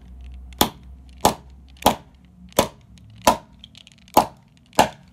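A screwdriver striking plastic LEGO bricks: seven sharp knocks, about one every two-thirds of a second.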